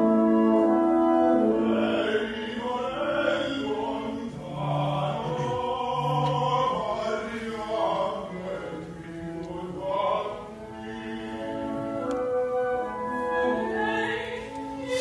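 Opera music: a trained voice singing long held notes over instrumental accompaniment.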